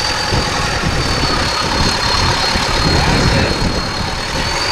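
Off-road 4x4 prototype's engine idling steadily, with a thin, steady high whine over it.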